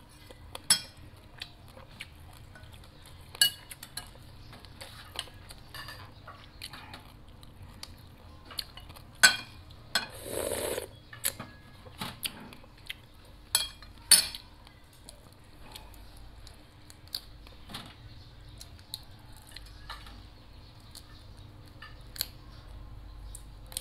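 A metal spoon clinking against a china bowl and plate while eating, in scattered sharp clicks, with a short noisy burst about ten seconds in.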